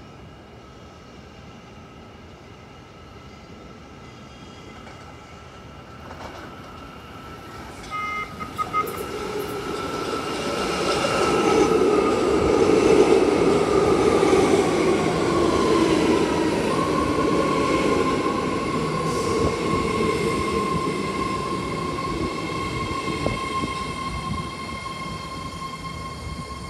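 New BART train pulling into the station: wheel rumble and an electric whine grow louder over several seconds. The whine falls in pitch as the train slows to a stop, then a steady whine carries on while it stands.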